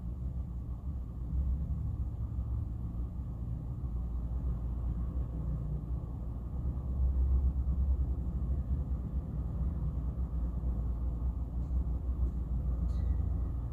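Strong wind buffeting the microphone: a low rumble that swells and eases in gusts, loudest about seven or eight seconds in.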